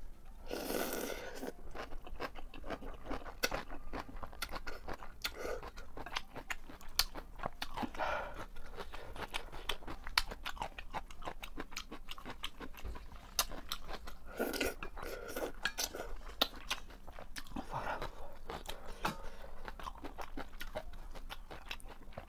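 Close-miked eating of janchi guksu noodles: noodles slurped in at the start and three more times, with wet chewing and crunching between.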